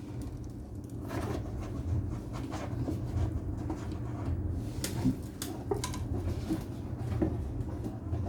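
Irregular small clicks and knocks of parts and tools being handled on a workbench, over a low steady hum.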